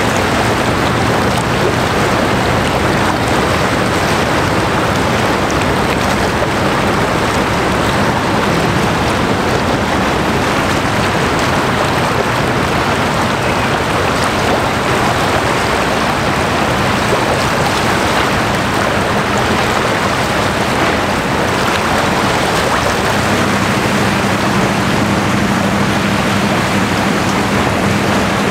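Steady rush of water from the bow wave and wash of the passing container ship Safmarine Nokwanda, with a low hum from the ship underneath that grows stronger near the end.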